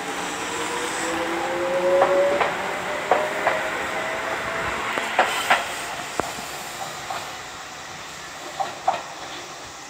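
Tobu 8000 series electric commuter train pulling out and accelerating. Its motor whine rises in pitch over the first couple of seconds, and the wheels give irregular clacks over the rail joints. The sound fades as the train draws away.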